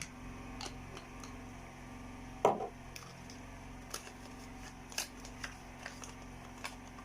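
Light clicks and taps of a bottle, cap and spoon being handled while oil is measured into a mixture, with one louder knock about two and a half seconds in. A steady low mains hum runs underneath.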